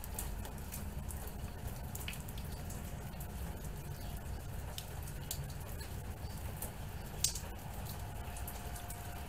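Rain falling during a thunderstorm, with scattered drops pattering and dripping close by and one sharper drop about seven seconds in.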